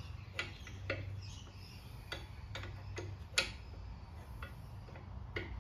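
Sharp metallic clicks and clinks of hand tools at irregular intervals, about seven in all, while the track adjuster of a mini excavator is being loosened. A faint low hum lies underneath.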